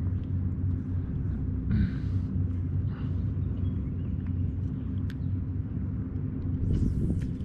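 Wind rumbling steadily on the microphone over open water, with two brief hisses about two and three seconds in.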